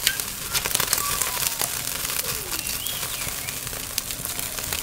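Dense, irregular crackling and rustling, with a few faint, short bird whistles.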